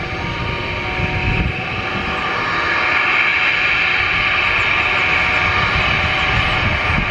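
Twin turbofan engines of a jet airliner running up for takeoff: a steady jet whine over a broad roar that grows louder about two and a half seconds in, as the thrust comes up.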